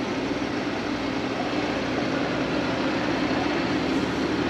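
ARB twin onboard air compressor running steadily as it airs up four tires at once, a constant mechanical drone with a steady hum.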